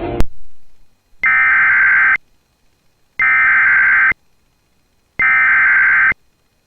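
Emergency Alert System SAME header: three identical one-second bursts of buzzing digital data tone, about a second of silence between each, following a click as the preceding music cuts off.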